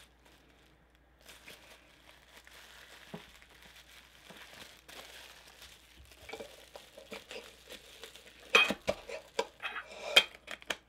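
Clear plastic packaging crinkling as it is handled, then the metal lid and tin can of a Funko Soda clicking and clattering in the hands, with a few sharp knocks near the end.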